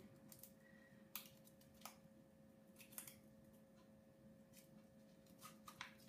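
Near silence with a few faint crinkles and clicks of a dishwasher tablet's plastic wrapper being handled and peeled open by hand, a quick cluster of them near the end, over a faint steady hum.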